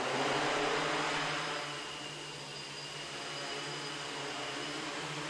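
MikroKopter multirotor's electric motors and propellers spinning up for takeoff, loudest in the first second and a half, then settling into a steady hovering buzz with a high motor whine.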